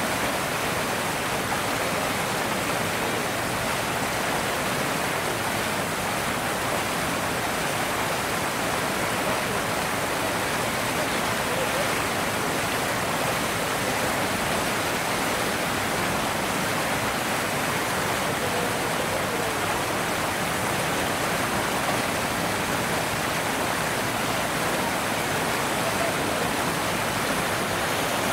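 Steady, even rushing noise with no distinct sounds standing out.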